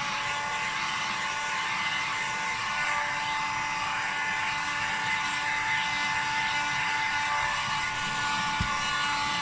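Hot-air blower running steadily with a whining motor, heating the adhesive pads that hold a laptop's LCD panel so it can be lifted.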